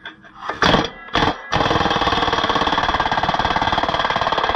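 Air impact wrench hammering on a stubborn rusted nut on a disc harrow's bearing bolt: two short bursts, then steady continuous hammering from about one and a half seconds in.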